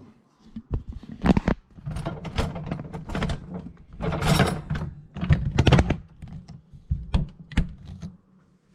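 Hard objects being handled: irregular clicks, knocks and rattles, with a couple of longer rattling stretches, as a small piece of plastic is worked at and a tool is fetched.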